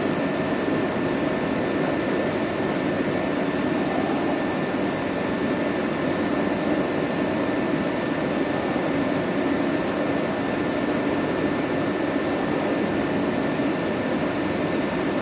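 Cazeneuve ID-Max CN 600 CNC lathe running, a steady machine drone with a faint constant high whine over it.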